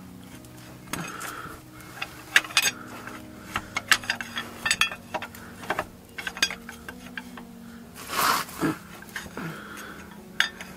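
Steel pry bar clinking and knocking against the transmission case and inner CV joint as it levers a Ford Fiesta ST's front drive shaft out of the transmission: a run of sharp metallic clicks and knocks, with a longer, louder noise about eight seconds in. The joint is stuck, held in by its spring clip.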